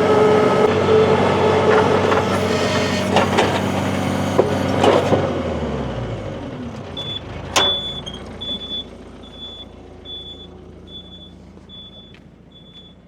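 An engine running loudly, then winding down in pitch and stopping about six seconds in. After it stops, a high electronic beep repeats about twice a second, with a single sharp knock as the beeping starts.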